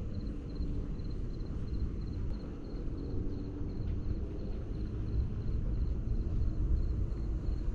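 Outdoor ambience: a steady low rumble with a faint, high insect-like chirp repeating about three times a second.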